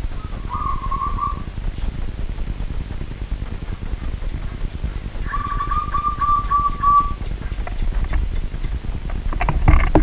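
Zebra dove (perkutut) cooing: a short trill of notes about half a second in, then a longer run of about eight quick staccato coos at one pitch a few seconds later. A steady low rumble runs underneath, and a few sharp clicks come near the end.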